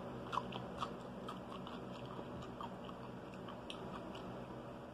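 A person chewing food close to the microphone, with faint wet mouth clicks scattered through.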